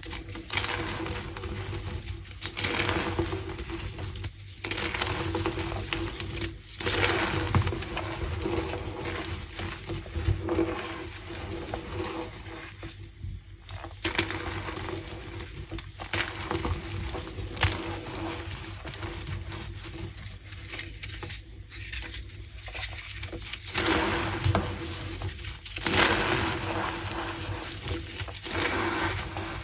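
Reformed gym chalk being crushed and crumbled, giving squeaky, crackling crunches. The crunches come in swells of a second or two, with brief pauses between them.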